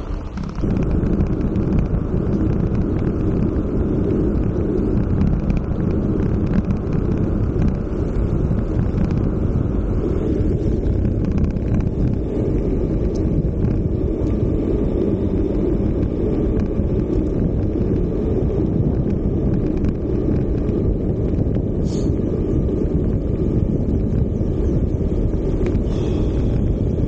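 Steady rumbling wind buffeting on the microphone of a bike-mounted action camera, with the bike riding at speed on a descent.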